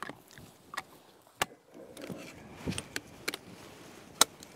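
Scoped bolt-action hunting rifle being loaded and handled: several sharp metallic clicks with clothing and handling rustle between them. The loudest click, near the end, is the detachable box magazine snapping into place.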